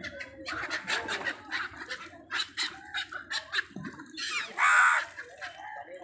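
A flock of gulls calling over the water: a quick run of short, harsh calls, then one longer, louder call about four and a half seconds in.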